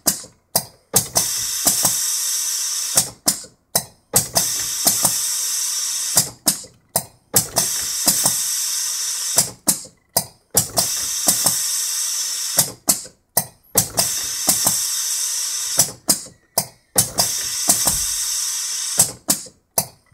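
Custom chocolate-bar wrapper date-stamping machine running through its stamping cycle: a steady whir broken by mechanical clicks and clacks, with the cycle repeating about every three seconds.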